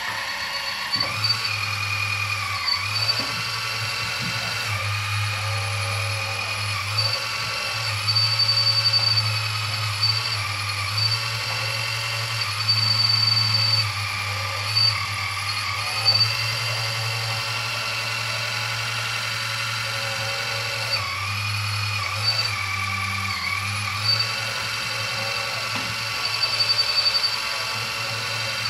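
Electric motors of an RC model excavator whining steadily as its upper body swings round on the turntable. The pitch dips briefly each time the load changes, and a low hum cuts in and out. There are a few louder stretches of about a second each.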